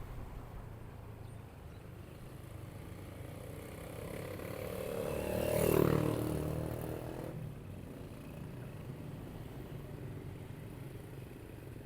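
Steady low engine and road rumble of a motorcycle ride. Another vehicle passes close: its sound swells to a peak about six seconds in, its pitch drops as it goes by, and it fades within a couple of seconds.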